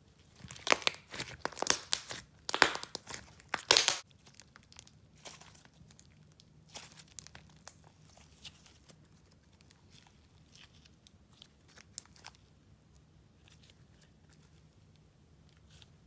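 Thick white clay slime being folded, pressed and stretched by hand, giving loud sticky crackles and small pops for the first few seconds. After that the crackles are quieter and scattered, with one sharp pop about twelve seconds in.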